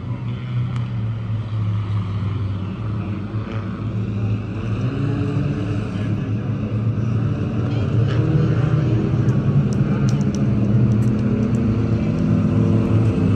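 A pack of about twenty hobby stock race cars running together in two-wide formation, their engines a steady drone that grows louder as the pack comes around toward the grandstand.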